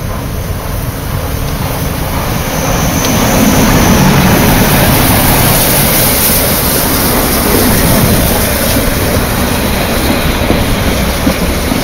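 HSB 99 7232, a metre-gauge 2-10-2 tank steam locomotive, pulling away with a passenger train and passing close. Its exhaust grows loud about three to four seconds in, joined by a loud hiss of steam from the cylinders. Near the end the coaches' wheels roll past.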